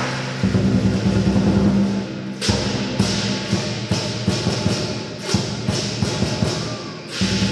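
Lion dance percussion of Chinese drum, cymbals and gong. A low ringing tone holds for about the first two seconds, then sharp cymbal clashes and drum strikes follow in quick succession.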